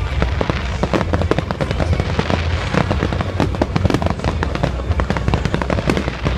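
Fireworks going off in a dense, rapid barrage of bangs and crackles, many reports a second without a break.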